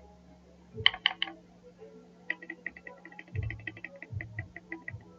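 Typing on a mechanical keyboard fitted with PBT OEM-profile pudding keycaps: three quick keystrokes about a second in, then a fast run of keystrokes, about eight a second, from just past two seconds, with a few deeper thumps among them.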